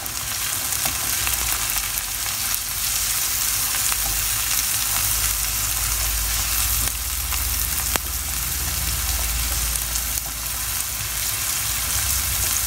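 Diced onion and green sweet pepper sizzling in hot oil and butter in a frying pan as a silicone spatula stirs them, the onion softening without browning. A steady frying hiss, with one sharp tick about eight seconds in.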